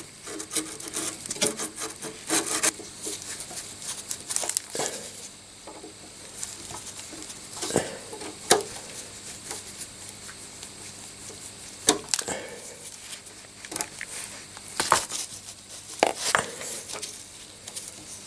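Pliers working a cotter pin out of a cap on a car's pedal assembly: irregular metallic clicks, taps and scraping of tool on metal, with short pauses between them.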